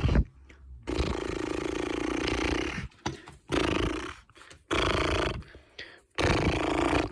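Electronic noise-making button, like a doorbell, playing a recorded animal-type sound effect four times in a row, the first time for about two seconds and the others shorter, with brief gaps between.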